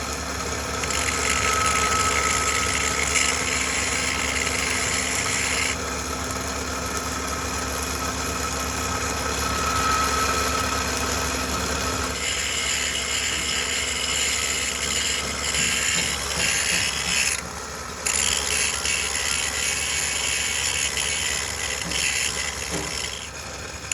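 Metalworking machine tool running, with a steady motor hum under a high hissing cutting noise. The sound changes abruptly a few times.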